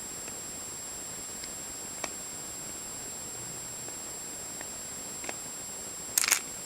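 Light clicks and taps from handling the plastic puzzle pieces and core while screwing the 4x4 back together: a few faint single clicks, then a quick cluster of louder clicks near the end, over a steady hiss.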